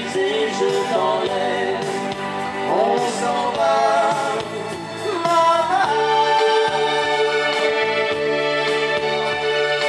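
Live band music with a sung melody whose pitch bends and glides. About six seconds in, it settles into long, steady held notes.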